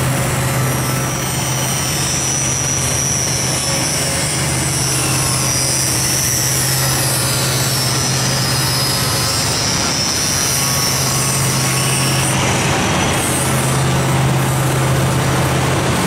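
Angle grinder grinding a steel car frame, a steady high whine over a continuous low hum; the whine stops near the end.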